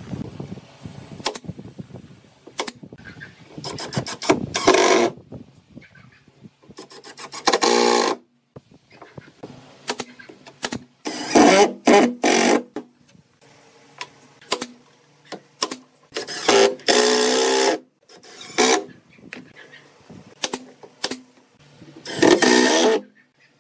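Cordless impact driver driving screws into pallet-wood slats in short bursts of about a second, repeated several times. Light knocks and clicks come between the bursts as pieces are positioned.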